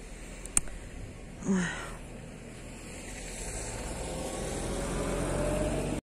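A motor vehicle approaching on the street, its low engine hum growing steadily louder over the last few seconds with a faint rising tone.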